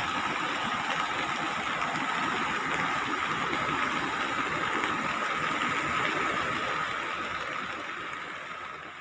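Steady rushing noise of heavy monsoon rain and a flooded, rain-swollen river, with a thin steady high tone running through it. It fades away over the last couple of seconds.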